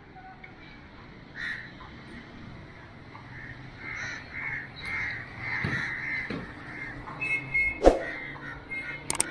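Crows cawing several times over a steady outdoor background, with a sharp click near the end.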